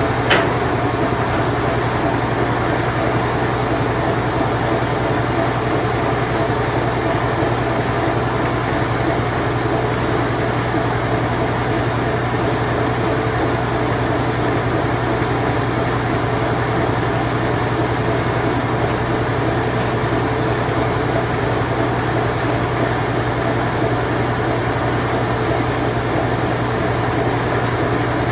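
Late-1980s Whirlpool Imperial Clean Touch washing machine running its spin cycle, a steady low hum with a dense mechanical rush over it. There is one short click near the start.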